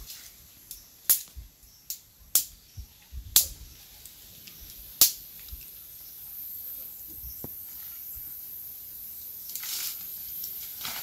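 A handful of sharp, separate clicks and knocks in the first five seconds, over a steady high-pitched hiss that grows a little louder in the second half.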